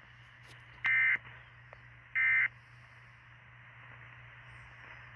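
Emergency Alert System end-of-message data bursts: two short, harsh digital buzzes about a second apart, the last two of the three that close out a tornado warning broadcast. A steady low hum runs underneath.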